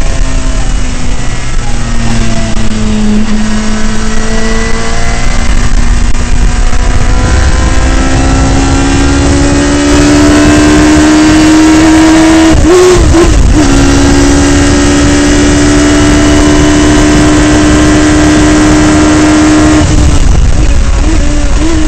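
Radical SR3 race car's engine heard from inside its open cockpit, pulling hard with its pitch climbing steadily, wavering briefly about halfway, holding high, then falling in short steps near the end. Heavy wind rush buffets the microphone throughout.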